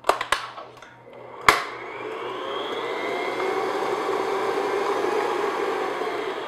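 Stand mixer motor whirring as its paddle beats vanilla into thick egg yolk and sugar batter. A few clicks come first, with a sharp click about a second and a half in. The motor's pitch then rises to a steady whine and falls away near the end as it slows.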